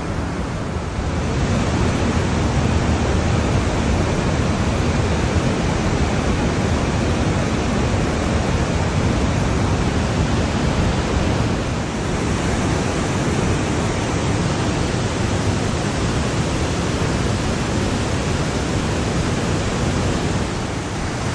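Mountain torrent rushing through a narrow rock gorge: a loud, steady rush of water that swells slightly about a second in.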